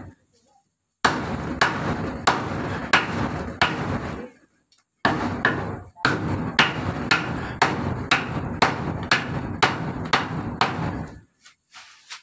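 Claw hammer driving a nail into a wooden post, quick blows at about three a second. The blows come in three runs with short pauses and stop about a second before the end.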